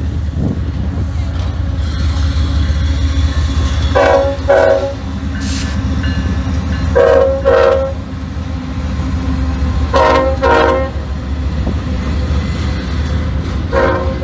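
Union Pacific diesel freight locomotives passing with a steady low engine rumble, the horn sounding two short blasts at a time, repeated about every three seconds.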